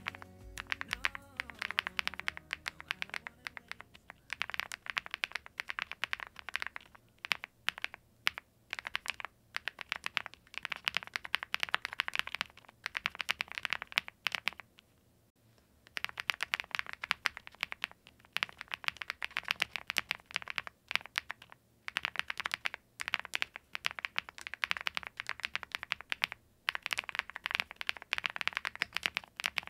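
Typing on a Zoom75 mechanical keyboard: a rapid, steady clatter of key presses in flurries, stopping for about a second about halfway through.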